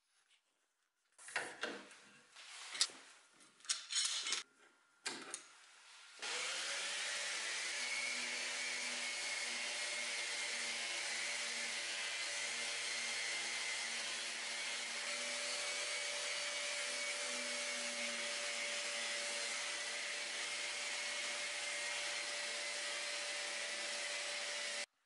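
A few scattered knocks and clatters, then about six seconds in a random orbital sander starts up, its pitch rising briefly as it spins up, and runs steadily as it sands the bare wood of a chair frame, stopping just before the end.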